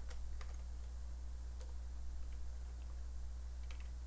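A few scattered, faint computer-keyboard clicks over a steady low electrical hum.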